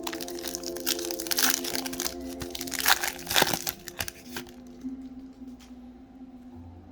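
Crinkling and crackling of a foil trading-card pack wrapper being torn open and handled, busiest in the first four and a half seconds, over soft background music.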